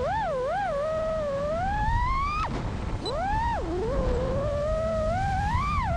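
FPV freestyle quadcopter's four Brotherhobby Avenger 2207.5 2350 kV motors spinning HQProp J37 props, whining up and down in pitch with the throttle. The pitch wavers, climbs steadily, drops sharply about two and a half seconds in, then rises again to a peak near the end.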